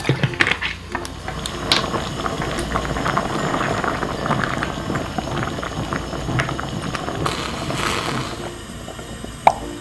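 Abalone and rice porridge bubbling hard at a boil in a pot, with a spatula stirring and scraping through it; a sharp tap near the end.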